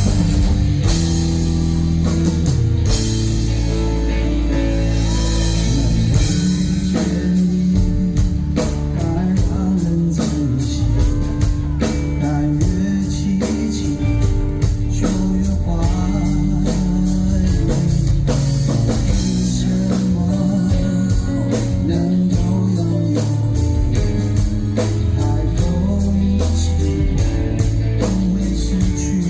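Live rock band playing an instrumental passage on drum kit, bass and guitars. A steady drum beat comes in about seven seconds in.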